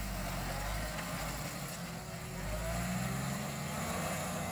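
Jeep Wrangler YJ engine running at low revs as it pulls away over a rocky dirt trail, the revs swelling briefly about two-thirds of the way through.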